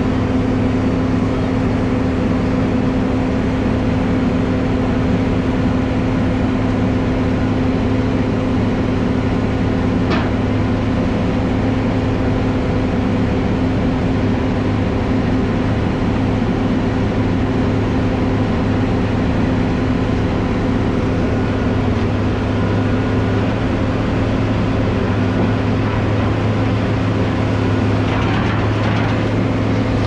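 Heavy diesel engine of a rotary piling rig running steadily, a constant drone with one short click about ten seconds in.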